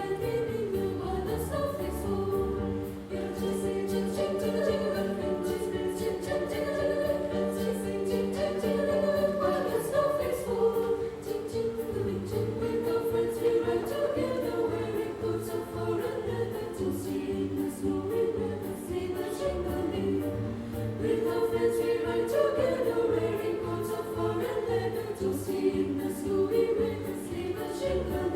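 Women's choir singing a Christmas carol in several-part harmony.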